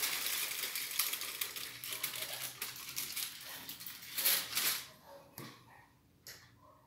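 Aluminum foil crinkling and crackling as it is peeled off a glass baking dish. A dense crackle with a louder burst about four seconds in, dying away at about five seconds.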